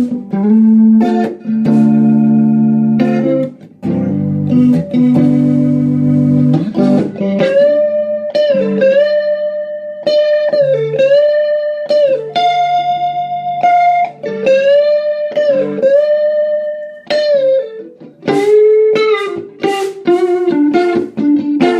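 Electric guitar, a Stratocaster, played through a Yamaha RA-200 rotary speaker amp. It plays full chords for the first several seconds, then a slow lead line of sustained single notes with string bends.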